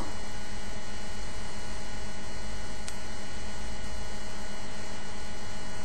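Steady electrical hum and hiss, with one faint tick about three seconds in.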